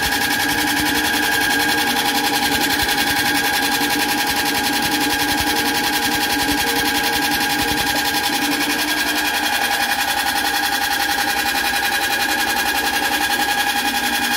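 Electric-motor-driven soybean splitting and dehulling machine running steadily: a constant hum of several held tones with a fast, even rattle.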